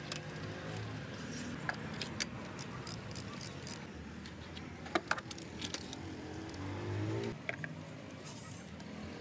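Irregular metallic clicks and clinks of a ratchet wrench and socket being worked on the spark plugs of a Honda HR-V's engine, with some quick clusters of clicks.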